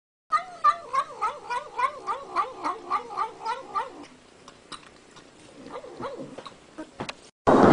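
Kitten meowing over and over in quick, wavering cries, about four a second, for several seconds. After that the cries turn fainter and scattered.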